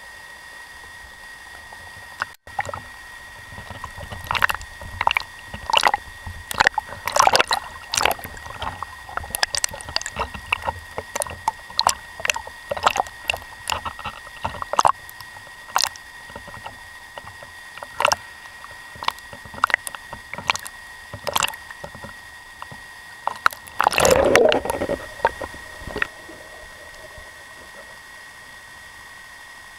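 Lake water splashing and gurgling around a speargun-mounted camera as a freediver moves at the surface, with many short sharp splashes, then a louder gurgling rush of water about 24 seconds in before it goes quieter. A thin, steady high tone runs underneath.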